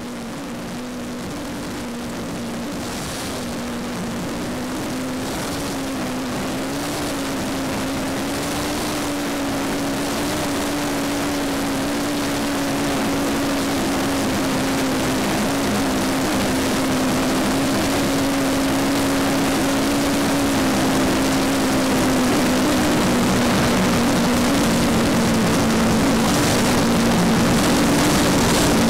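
Steady rush of airflow and turbine noise heard from a camera on the wing of a giant-scale model VC-10 jet powered by four Wren Super Sport gas turbines, with a low drone that wavers slightly in pitch. It grows steadily louder throughout.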